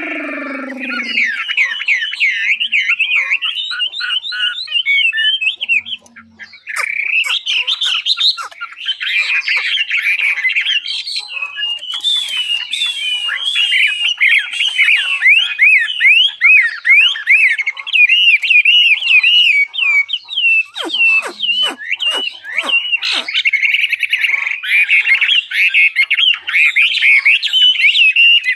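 Chinese hwamei (họa mi) singing a fast, continuous song of varied whistled phrases, with a short break about six seconds in and a few deeper downward-sweeping notes about three-quarters of the way through.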